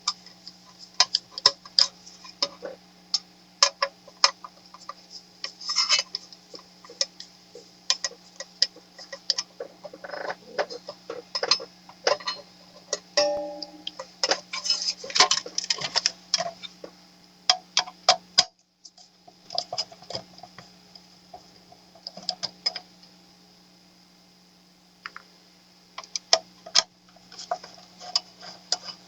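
Irregular metallic clicks and taps of hand tools, screws and the sheet-metal case as the top cover of an 858D hot-air rework station is unscrewed and lifted off, over a steady low hum.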